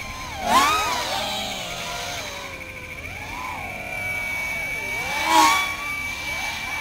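FPV racing quadcopter motors whining, their pitch sliding up and down as the quads throttle and sweep through the course. Two quads pass close, loudest about half a second in and again about five seconds in, with a steady high whine underneath in the second half.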